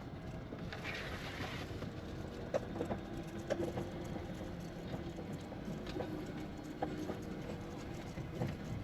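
Steady low running noise of a small farm vehicle being ridden, with scattered light knocks and rattles.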